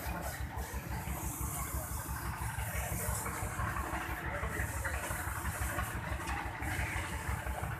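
An engine idling steadily with a low, even pulsing, with voices in the background.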